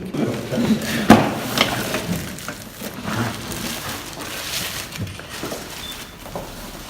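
Indoor ambience with scattered knocks and clatter, the sharpest knock about a second in, then a quieter, steady background noise.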